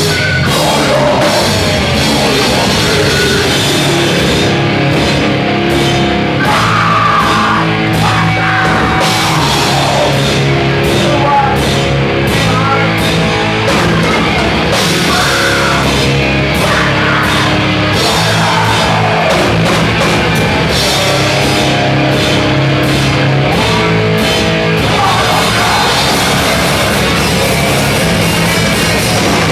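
A rock band playing loud, heavy rock music with a drum kit, steady in level throughout.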